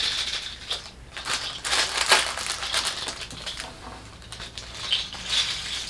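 Plastic package of googly eyes crinkling and rustling as it is handled and opened, in irregular bursts that are loudest about one to two seconds in.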